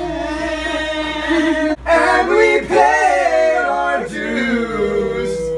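Young male voices singing a cappella, holding long notes with gliding pitch, with a brief break nearly two seconds in.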